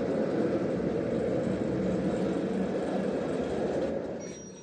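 Portable bandsaw sawmill's gas engine running under load as the band blade cuts along a tulip poplar log. Steady and loud, then dropping off sharply about four seconds in as the head clears the end of the log.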